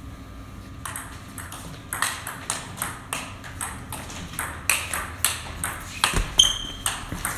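Table tennis rally: the ball clicking off the paddles and the table in a quick, even back-and-forth, about two hits a second. About six seconds in there is a heavier hit, then a brief high squeak of a shoe on the hall floor.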